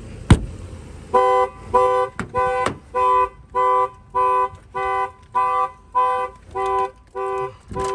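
Aftermarket car alarm on a 2003 Infiniti G35 going off, a horn-like blast repeating at an even pace, just under two blasts a second, after a single sharp click near the start. It has been tripped by trying to start the armed car, and its starter cut-out keeps the engine from starting.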